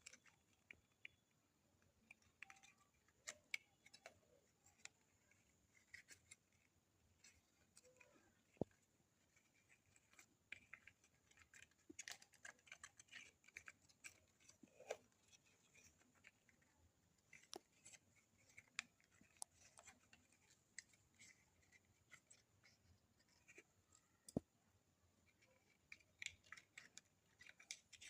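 Faint, irregular small clicks, ticks and scratches, with a few sharper ticks, from a pet ringneck parrot's beak and claws working at something in a small room.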